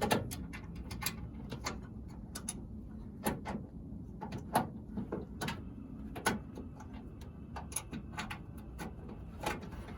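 Irregular metallic clicks and taps of pliers working the terminal nuts and wires on a Ford starter relay, a few sharp clicks a second with uneven gaps.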